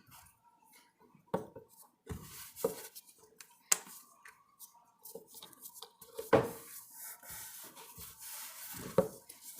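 Marshmallow slime being folded and tapped down on a tabletop while food colouring is kneaded in: a handful of irregular short taps and knocks, the loudest about six and a half seconds in, with quiet handling noise between.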